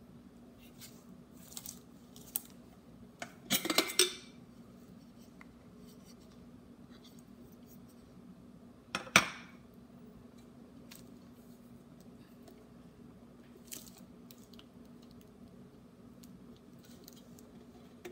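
Clinks and knocks from handling an electric kettle and its parts: a quick cluster about three and a half seconds in and one sharp click about nine seconds in, with a few light ticks and a faint steady hum underneath.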